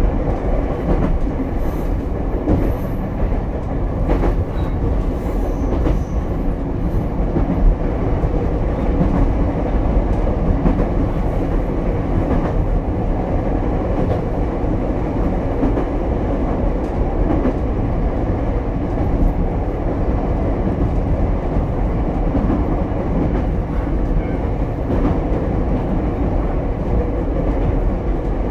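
Running noise of the single-car Ichibata 7000-series electric railcar heard from inside, cruising between stations: a steady rumble of wheels on rail with a faint steady tone and a few light clicks over the rail joints.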